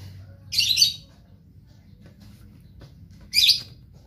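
A bird chirping in two short bursts of high notes, about half a second in and again near the end, with a few faint clicks from parts being handled in between.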